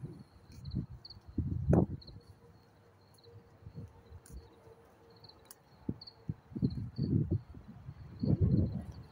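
Crickets chirping at night: short, high chirps come irregularly about once or twice a second. Louder low, muffled bursts of noise come and go three times, near the start, about two-thirds through and near the end.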